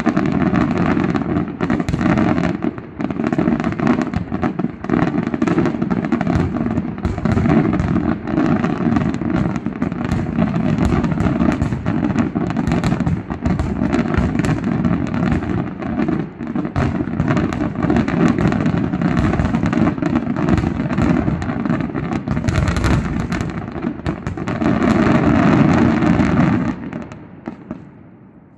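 Fireworks display: a dense, continuous barrage of aerial shells bursting in rapid succession. It builds to its loudest a couple of seconds before the end, then stops abruptly and dies away.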